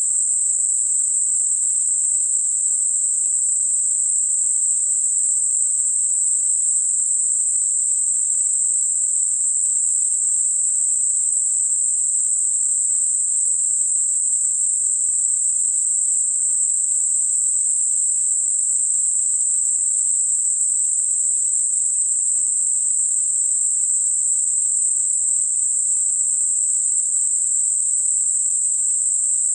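Computer-generated 8 kHz Gaussian narrow-band noise: a steady, unchanging high-pitched hiss with no low sound at all, made for masking high-pitched tinnitus.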